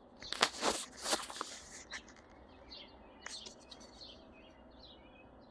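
Small plastic shifter parts clicking and rattling as they are handled and fitted, for about the first two seconds, then faint bird chirps in the background.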